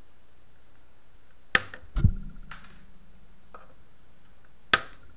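Flush side cutters snipping through the thick leads of a freshly soldered NTC inrush-current-limiter thermistor on a circuit board: three sharp snips, two close together about a second and a half in and a louder one near the end.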